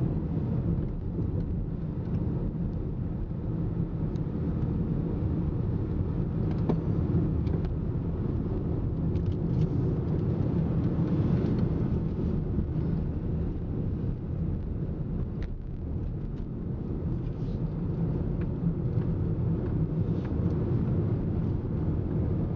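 Car driving downhill, heard from inside the cabin: a steady low rumble of tyre and engine noise, with a few faint clicks.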